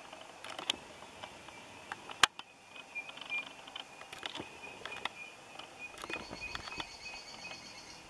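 Forest ambience: a thin high tone comes and goes, with scattered short high chips and clicks, and one sharp loud click about two seconds in.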